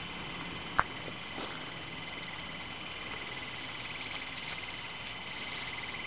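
Leaves and twigs of a bush rustling as they are pushed aside by hand, with a single sharp click about a second in. A faint, steady, high-pitched trill runs underneath.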